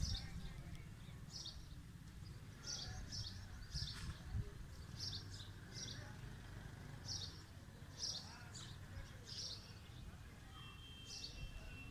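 Small birds chirping: a string of short, high chirps repeating every half-second to a second, over a steady low rumble.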